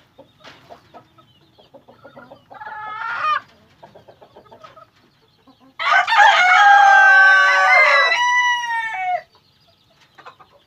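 Chickens clucking, with a short call about two and a half seconds in, then a loud, long rooster crow from about six to nine seconds, overlapped by another bird's call.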